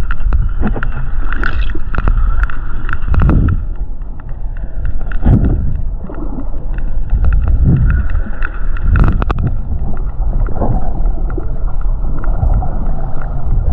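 Sperm whale clicks heard underwater: a series of sharp clicks, some in quick clusters typical of codas, over a low, swelling rush and gurgle of moving water.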